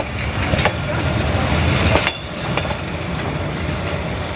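Train rolling past close by: a steady low rumble with a few sharp clacks of the wheels over the rail joints.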